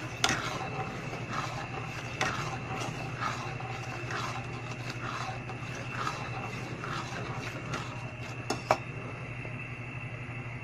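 Metal spoon stirring liquid round an aluminium pot, scraping the pot in a steady rhythm about twice a second, with a few sharp clinks against the side, over a constant low hum.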